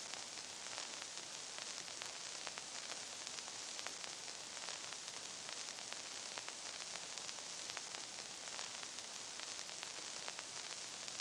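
Steady hiss with scattered clicks and crackles: the surface noise of an old optical film soundtrack, before the music starts.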